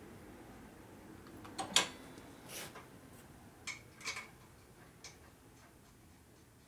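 A few scattered sharp clicks and taps, the loudest about two seconds in, with a short hiss just after. These are handling noises from bleeding a motorcycle's hydraulic brakes.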